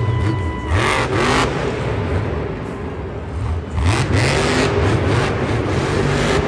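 Monster truck engine revving hard, its pitch rising and falling again and again, with two louder rushes of noise about a second in and about four seconds in. A steady high tone runs through roughly the first second.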